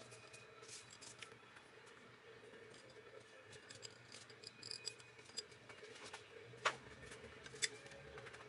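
Faint light clicks and clinks of metal engine parts being handled as the timing sprocket hardware comes off a BMW M44 camshaft. Two sharper clicks come about a second apart past the middle.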